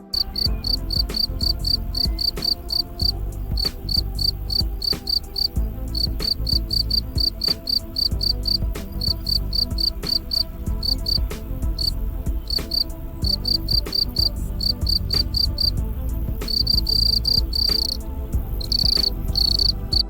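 Insect chirping in runs of rapid high-pitched pulses, several a second, with short breaks and a few longer notes near the end, over a steady low rumble.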